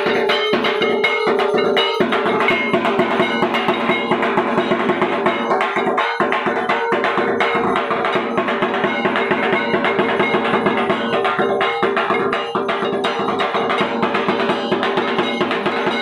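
Arati accompaniment of bells and struck percussion, clanging in a rapid, continuous rhythm over a steady metallic ringing.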